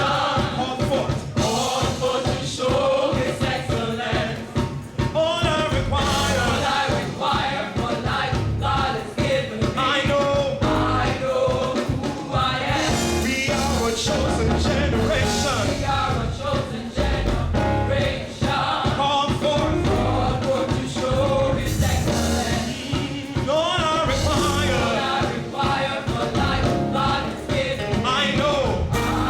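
Live gospel music: singers with a choir over a full band with drums and bass.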